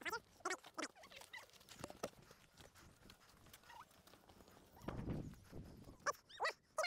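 Footsteps on a paved road, with short high-pitched animal calls now and then and a quick run of several calls near the end.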